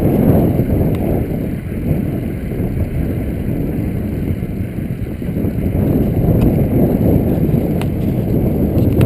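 Riding a bicycle: a steady low rumble of wind buffeting the microphone mixed with tyre and road noise, with a couple of faint clicks near the end.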